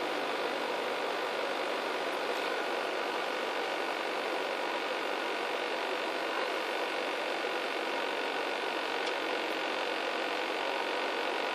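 Mazda MX-5 NB2 four-cylinder engine idling with a steady hum. It is the owner's cold-start rough idle, which appeared only once the weather cooled.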